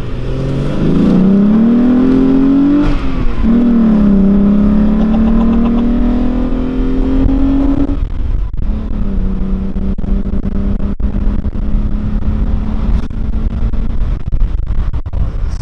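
VW Golf IV Cabrio's swapped-in 174 PS VR6 engine pulling hard through the gears, heard from inside the car. The revs climb, dip at a shift about three seconds in, and climb again for about five seconds. Then the revs drop and hold steady at a lower pitch.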